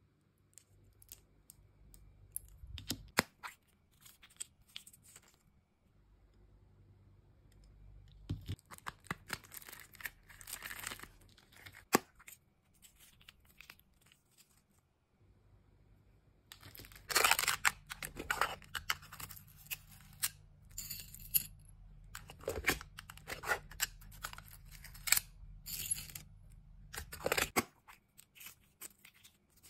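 Pink paper wrapping handled close to the microphone: rustling, crinkling and tearing in bursts, with a few sharp clicks. The busiest stretch is in the second half, with quieter gaps between bursts.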